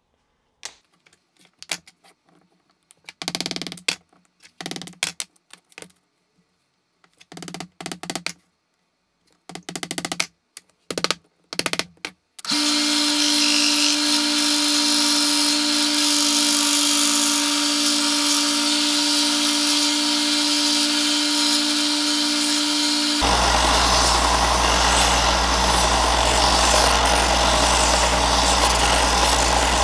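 Irregular short strokes of scraping or abrading, then a power tool in a knife-making shop starts and runs steadily with a pulsing whine. About two-thirds of the way through it changes abruptly to a different steady running sound with a deep hum.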